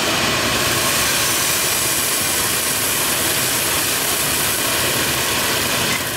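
Kitchen range hood fan running with a steady, even rush, over a covered pan of poblano peppers sizzling in oil. The noise drops away at the very end.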